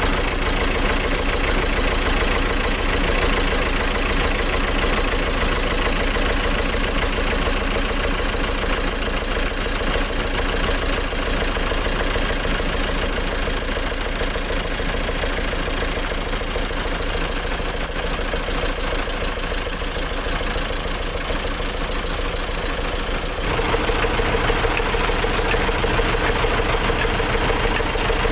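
Diesel engine from a Mitsubishi PS100 truck running steadily at a constant speed, driving an N70 rice mill. About 23 seconds in it grows a little louder and harsher.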